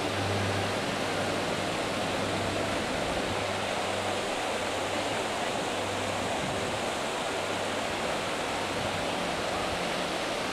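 Water pouring steadily over a low river weir and churning into white water below it.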